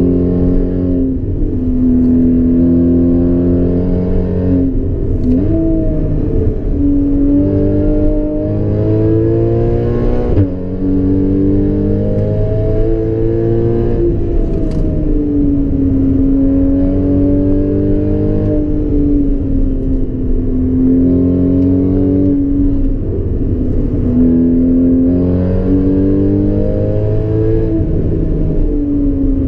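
2014 Porsche Cayman S's flat-six engine with an aftermarket Borla exhaust, heard from inside the cabin under hard driving. The engine note climbs as it accelerates and drops as it lifts and changes gear, over and over, with one abrupt break in the note about ten seconds in.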